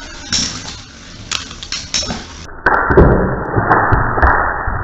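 Spinning metal Beyblade tops clinking and scraping against each other and the plastic stadium, in scattered sharp knocks. About two and a half seconds in, the clatter turns louder, duller and deeper.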